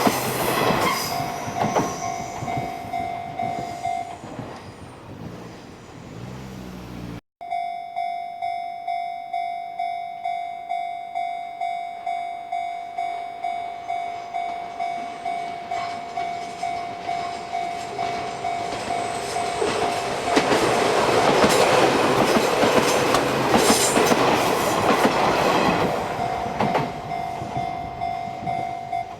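Japanese level-crossing warning bell ringing in even, repeated dings while Izuhakone Railway Sunzu Line electric trains pass over the crossing. The noise of one train fades over the first few seconds and the bell stops. After a cut the bell rings again, and a second train passes with rumble and wheel clatter, loudest about two-thirds of the way through, then fades under the bell.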